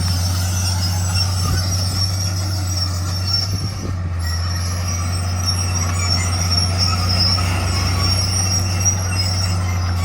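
Komatsu D41 crawler bulldozer running steadily, its diesel engine giving a deep even hum under a high metallic squeal typical of steel crawler tracks.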